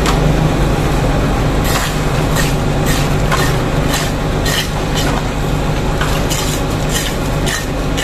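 Concrete mixer truck's diesel engine running steadily. From about two seconds in, a run of short scraping strokes, about two a second, as hand rakes and hoes drag across wet concrete.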